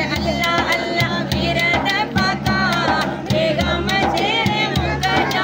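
Women singing a devotional milad song to a large hand-struck frame drum (daf) beating a steady rhythm.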